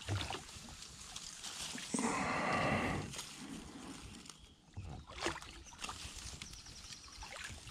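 Leaves and branches rustling as hands pull a snagged fishing line and treble hook out of a tree. About two seconds in there is a louder, pitched sound lasting about a second.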